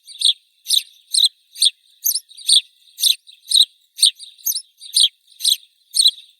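House sparrow chirping, a steady series of short high chirps at about two a second.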